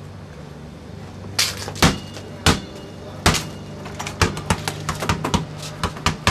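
Repeated knocking and banging on a house's front door: a few separate knocks, then a fast, irregular flurry of raps, over a steady low hum.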